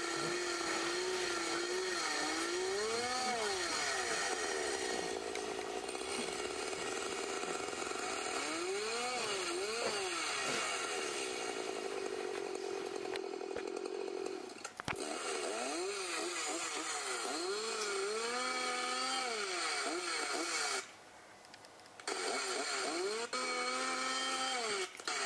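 Homelite XL12 chainsaw's two-stroke engine idling and being revved several times, each rev rising and falling in pitch. The engine sound cuts out for about a second near the end, then resumes.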